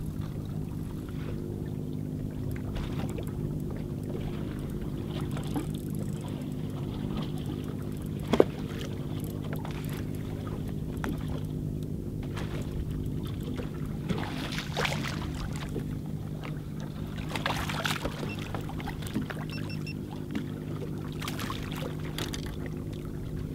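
Boat motor running steadily at idle under a fish fight. There is one sharp knock about eight seconds in, and a hooked smallmouth bass splashes at the surface several times in the second half.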